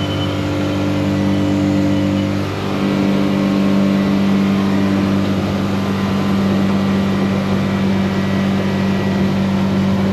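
Suzuki 150 four-stroke outboard running steadily at high revs under way, near the top of its range, which the owner takes as a sign that the propeller pitch is too low. The engine's tone shifts about two and a half seconds in, then holds steady.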